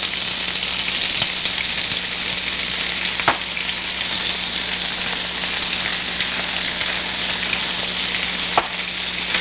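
Sliced peppers and scallions sizzling steadily in hot oil in a skillet over medium-high heat, with two sharp clicks, about three seconds in and near the end.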